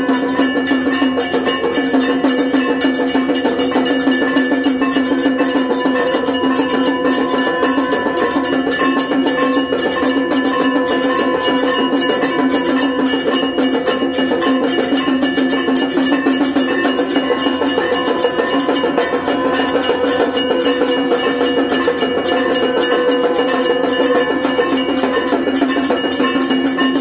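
Temple bells ringing in a fast, continuous clangour with percussion, the accompaniment of a Hindu aarti, unbroken throughout.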